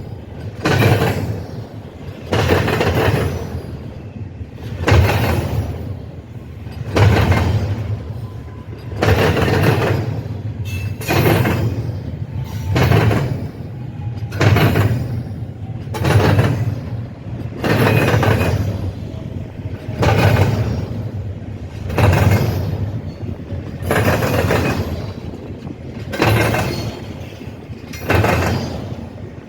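Train wheels banging across a railroad diamond crossing, with a loud clattering impact about every two seconds over the rumble of the passing train.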